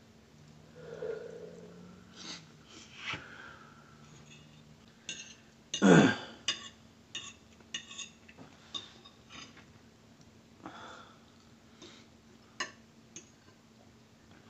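Breathing and sniffing from people suffering the burn of very spicy food, with one loud throat sound about six seconds in. Scattered light clicks of a fork on a plate are heard as one of them keeps eating.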